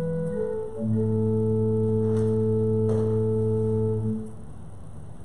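Organ playing slow sustained chords: after two quick changes, a final chord is held for about three seconds and released about four seconds in.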